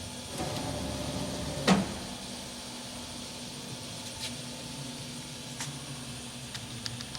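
Cincinnati Milacron Arrow 500 vertical machining center's Y axis traversing with a steady whine, then stopping with a sharp clunk under two seconds in. After that the machine hums steadily at rest, with a few light clicks.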